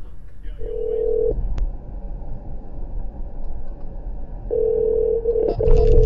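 A steady single-pitched tone sounds three times: once about half a second in, then twice near the end with a short break between. Low road rumble runs underneath and grows louder in the last half second.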